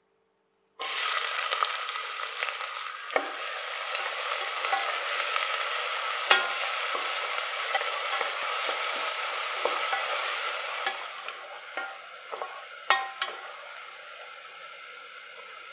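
Chopped onions dropped into hot oil in a stainless steel pressure cooker, a sizzle starting suddenly about a second in. The onions then fry while a wooden spatula stirs them, knocking sharply against the pot a few times. The sizzle dies down over the last few seconds.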